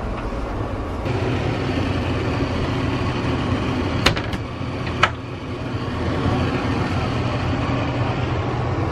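Steady low mechanical hum with a haze of background noise, broken by two sharp clicks about a second apart near the middle.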